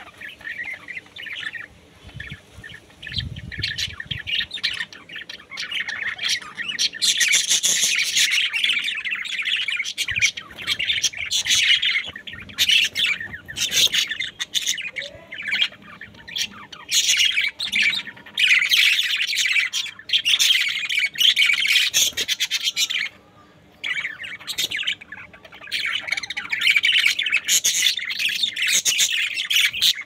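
Several budgerigars chattering and chirping, a fast warbling run of chirps and squawks that swells and fades in bursts, with a short lull about three quarters of the way through.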